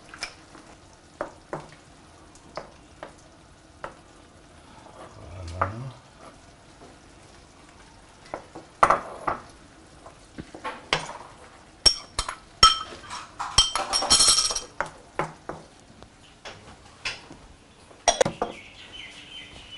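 A wooden spatula stirring vegetables in sauce in a wok: scattered knocks against the pan, then a busy stretch of rapid scraping and clatter about two-thirds of the way through.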